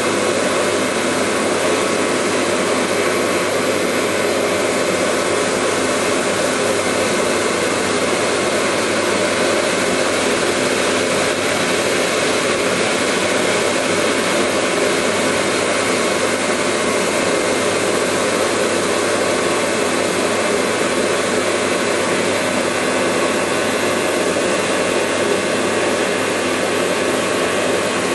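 Industrial laser cutting machine running while cutting metal: a loud, steady rushing noise that does not change.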